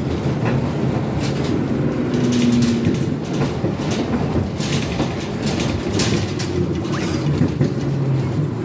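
Cabin of a ZiU-682GM1 trolleybus under way: steady running noise with a low hum, broken by frequent rattles and knocks from the body.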